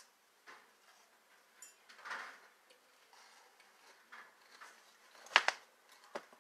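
Quiet eating of a bowl of cereal: scattered soft ticks and rustles, with a sharp click about five seconds in and another near the end.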